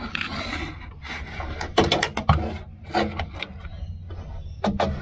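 Irregular knocks, clicks and rubbing: handling noise as the camera is moved about and bumps against the airframe. It is loudest about two seconds in.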